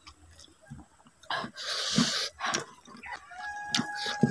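Close-up mukbang eating sounds: mouth smacks, chewing and fingers squeezing rice, with a breathy rush of noise about a second and a half in. In the last second a steady high-pitched tone holds for about a second.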